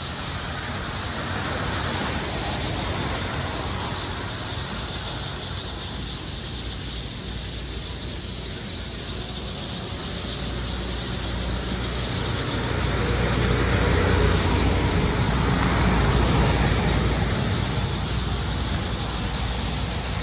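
Road traffic: a steady background hum of passing vehicles, swelling louder as vehicles go by, most strongly about two-thirds of the way through.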